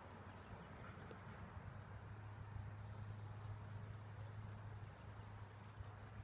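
Quiet outdoor background: a low steady hum under faint noise, with a short high chirp about three seconds in.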